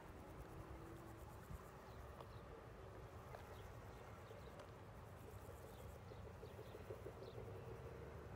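Near silence: faint rural outdoor ambience, a low steady rumble with scattered short, high chirps.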